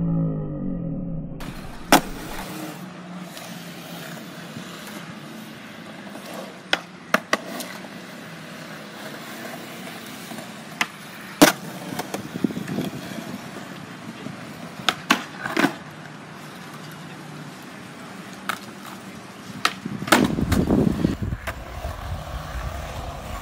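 Skateboard wheels rolling on concrete, with sharp clacks scattered through it as the board pops and lands, and a louder low rumble near the end.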